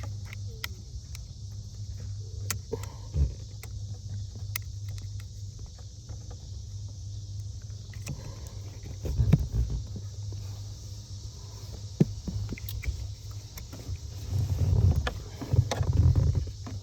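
Scattered small clicks and handling noise from a screwdriver prying apart a plastic wiring connector housing, with a few louder bumps and rustles about halfway and near the end, over a steady low hum.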